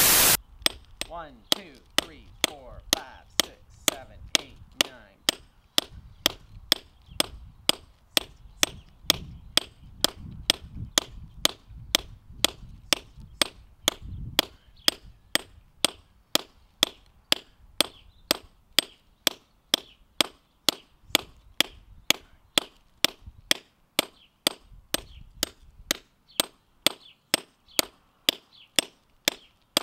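Hammer striking a hand-held rock drill, chiselling a bolt hole into concrete by hand: sharp, evenly spaced strikes about two a second. A brief burst of hiss opens it.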